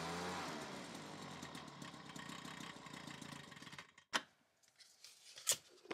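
Leaf blower running steadily with its nozzle pushed into a corrugated plastic duct, blowing a polythene bag trailing fishing line down the long underground conduit. It stops abruptly about four seconds in, followed by a few short clicks.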